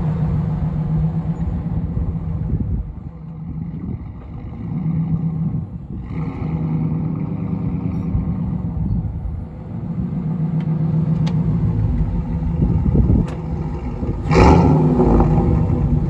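Lifted 2002 Dodge Dakota pickup's engine and exhaust running as it drives along the road, with a steady low drone that rises and falls, then surges to its loudest about fourteen seconds in as the truck passes close again.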